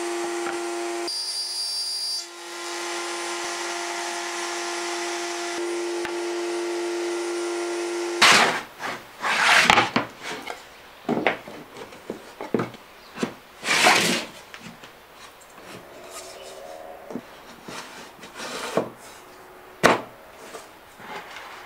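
A steady machine hum for about eight seconds that then cuts off, followed by irregular knocks and clatter of plywood panels being set down and fitted together on a wooden workbench.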